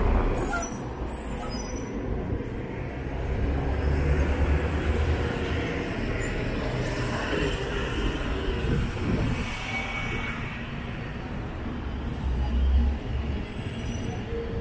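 City buses driving past close, one after another: a low diesel engine rumble that swells and fades as each passes, over steady street traffic noise.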